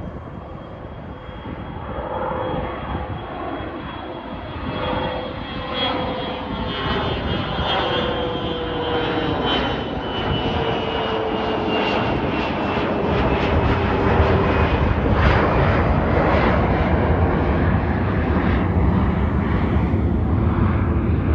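Bombardier E-11A's twin Rolls-Royce BR710 turbofans at takeoff power during a touch-and-go climb-out, passing overhead. A high whine and a lower tone both slide slowly down in pitch as the jet goes over. A deep rumble then builds over the second half as it moves away.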